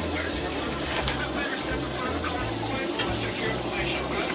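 Steady rush of running water, like a tap running, with low bass notes changing underneath.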